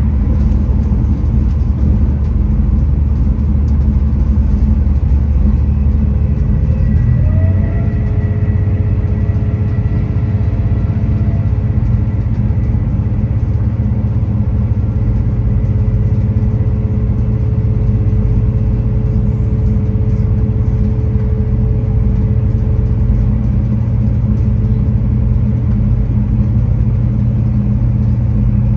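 V/Line VLocity diesel multiple unit running, heard from inside the carriage: a steady low diesel rumble with track noise. About seven seconds in the engine note steps up, and a faint steady whine comes in with it, fading out a few seconds before the end.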